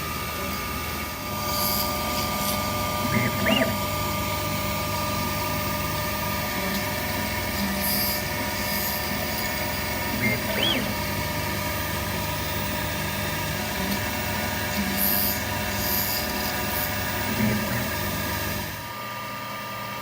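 HSD spindle of a Techno HD-II tabletop CNC router running a drilling program in thin brass sheet: a steady spindle whine with a low machine hum, and brief louder moments every few seconds as the drill plunges. The sound drops away near the end.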